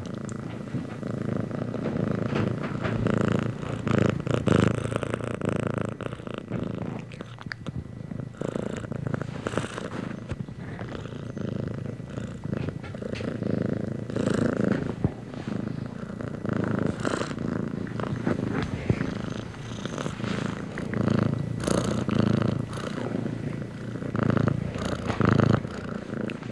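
Gray tabby domestic cat purring continuously, the purr swelling and easing with its breaths.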